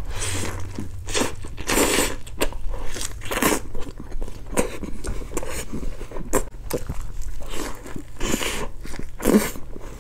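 Close-miked eating: a bite into a beef-patty burger with lettuce at the start, then steady chewing, with short crunchy chews about once or twice a second.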